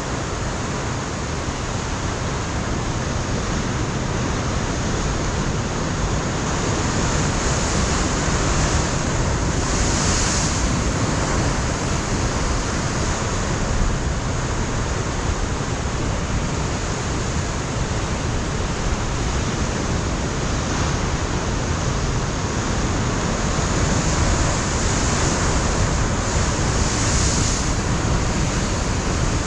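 Ocean surf breaking and washing against a rocky coastline, a continuous heavy rush with swells that build and fall back. Wind buffets the microphone throughout.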